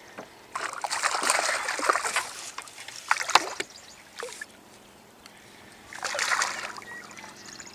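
A bass hitting a rubber topwater frog with a long splash, then splashing again at the surface on the line about six seconds in. A sharp knock comes a little after three seconds.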